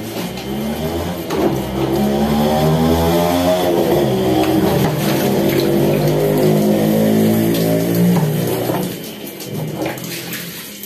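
Water being tipped out of a plastic washbasin and splashing onto a concrete floor during hand-washing of laundry, over background music.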